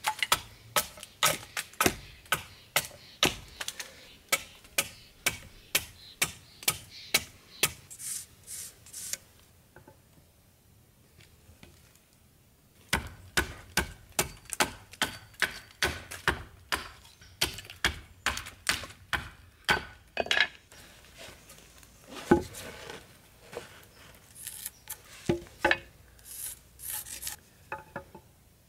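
Hatchet chopping a green tan oak handle blank on a wooden chopping block: quick, regular blows about two or three a second, a pause of a few seconds, then another run of chops. Near the end, a few separate knocks and rubbing as the blank is handled.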